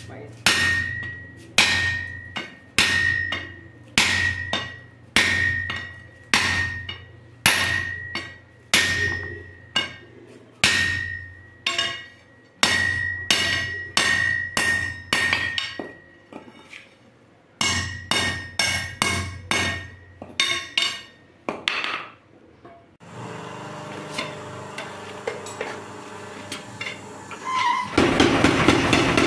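Hand hammer blows on red-hot steel on an anvil, roughly one a second, each with a bright anvil ring. This is a crowbar being forged. After a short break the blows come faster, then a steady mechanical hum runs for a few seconds. Near the end a 3 kW electric power hammer starts pounding the hot bar in rapid blows.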